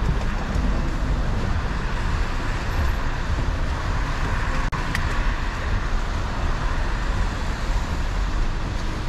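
City street traffic noise: a steady hiss with a low rumble. The sound drops out for a moment about halfway through.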